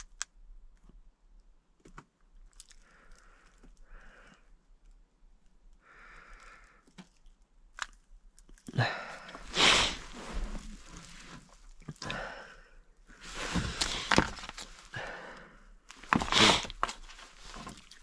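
Handling noise: a few faint clicks, then from about nine seconds in, several loud bursts of rustling and scraping as gloved hands shift a paper manual and a handheld remote.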